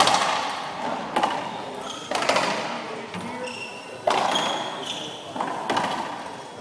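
A racquetball rally: about six sharp, echoing cracks of the racquet striking the ball and the ball smacking the walls. Short high squeals of court shoes on the hardwood floor come between the hits.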